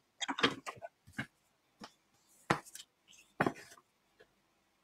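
Sharp taps and clicks from handling a paper trimmer and a strip of cardstock: a quick cluster at the start, then single knocks about two and a half and three and a half seconds in.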